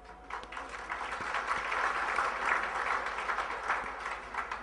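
Audience applauding; the clapping swells about half a second in and fades away near the end.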